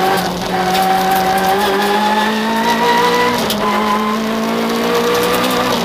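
Citroën Saxo VTS rally car's 1.6-litre four-cylinder engine heard from inside the cabin, accelerating hard with its pitch climbing. An upshift drops the pitch about three and a half seconds in, then it climbs again to another shift near the end.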